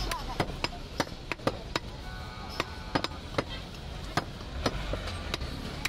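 Heavy butcher's cleaver chopping goat meat on a round wooden chopping block: a quick run of sharp chops, about three a second.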